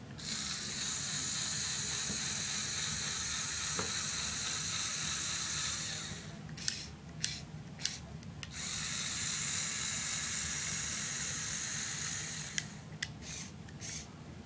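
Lego Technic RC chassis's Power Functions motors and gear drivetrain running, a high hissing whir that runs for about six seconds, stops, then runs again for about four seconds. Between and after the runs come a few sharp clicks.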